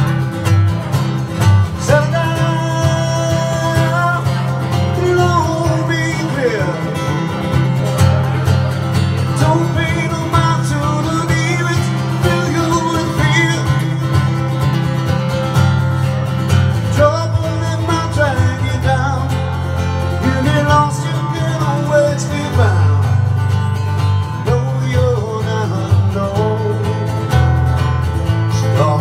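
Live song: a male singer accompanying himself on a hollow-body electric guitar, with a steady strummed backing under sung phrases that come and go.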